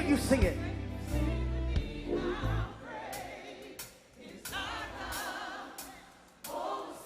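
Live gospel music: singers with a wavering vibrato over a band. The deep bass stops about two and a half seconds in, leaving the voices over a row of short, sharp hits.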